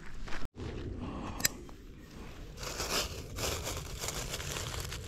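Close rustling and crinkling. The sound cuts out abruptly for a moment about half a second in, and a short rising chirp comes about a second and a half in.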